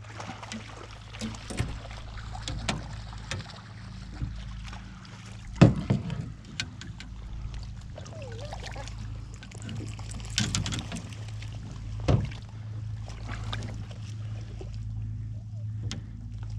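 Water splashing and sloshing in the shallows around a wading angler, over a steady low rumble, with a few sharp splashes, the loudest about six seconds in.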